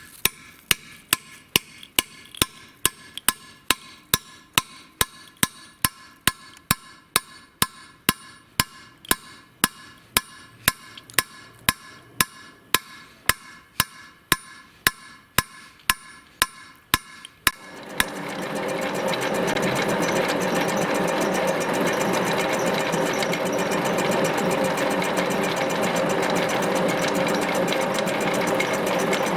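Sharp, evenly spaced knocks, about two a second. About 18 seconds in they stop and a steady, louder machine noise with a fast rattle takes over.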